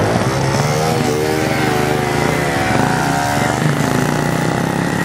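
Several small motorcycle and moped engines revving as the riders pull away together, their overlapping notes rising and falling with the throttle.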